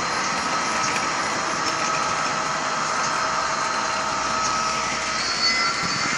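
Electric model train running on its track: a steady rolling noise with a thin, steady whine over it.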